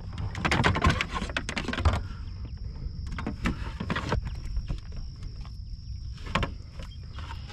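Scattered clicks and knocks of gear and a fish being handled on a plastic kayak, over a low rumble of wind on the microphone and a faint steady high tone.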